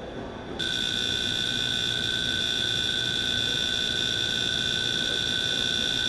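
Steady, unbroken electronic warning tone of a baggage carousel's start-up alarm, coming on suddenly under a second in over a low mechanical hum.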